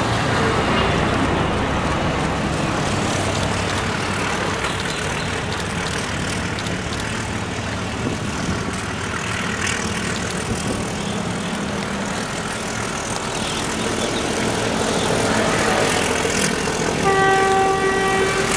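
ALCO YDM-4 meter-gauge diesel locomotive's six-cylinder ALCO 251 engine chugging steadily under load as it pulls a passenger train away from a halt, smoking heavily. Near the end a single-note horn sounds for about a second and a half.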